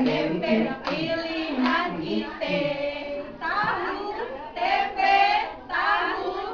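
A group of women singing a yel-yel cheer chant together in unison, in high voices and in short repeated phrases.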